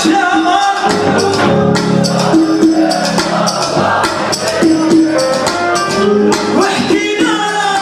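Live Arabic party music: singing over a band, with a steady shaker and tambourine rhythm.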